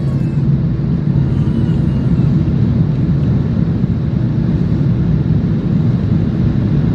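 Airliner cabin noise: a steady low drone of the jet engines and rushing air, with a hum running through it.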